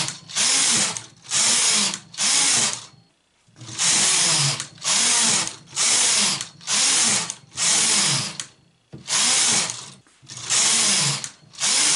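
Domestic knitting machine carriage pushed back and forth across the needle bed, knitting one row per pass: a run of about a dozen short mechanical strokes, roughly one a second, with a brief pause about three seconds in.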